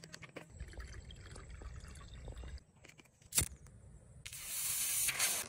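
Plastic bottle handled with small crackles and taps, then a single sharp click as a lighter is struck, followed by a steady hiss for the last second or so.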